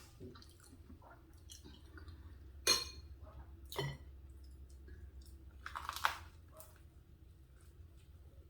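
A person chewing a mouthful of macaroni and cheese close to the microphone, with wet mouth sounds and a few sharper clicks and smacks, the loudest about three seconds in and again around six seconds.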